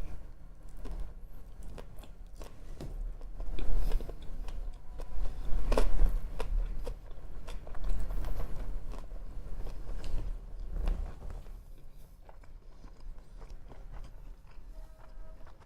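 Close-miked mouth sounds of someone eating sushi: wet, sticky chewing with lip smacks and small clicks. There are louder bites near 4 and 6 seconds in, then quieter chewing toward the end.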